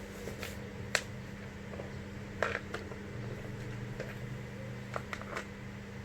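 Several sharp, separate clicks and taps of small tools and parts being handled, over a steady low hum.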